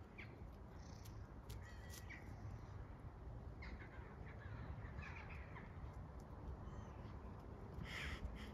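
Faint, scattered animal calls, short caw-like calls and chirps, the strongest near the end, over a low steady rumble.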